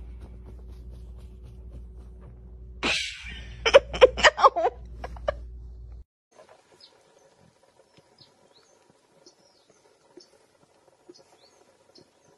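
A white-bellied caique gives a harsh screech about three seconds in, then a quick run of about six short, loud squawks. After that only faint clicks and small high chirps are heard.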